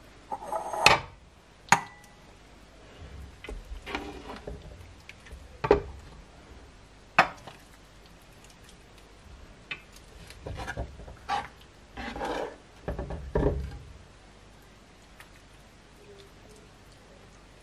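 Metal ladle scooping thick oat and chicken soup out of a pan and into a ceramic bowl: several sharp clinks of the ladle against the pan, with scraping and soft wet plops of the soup in between.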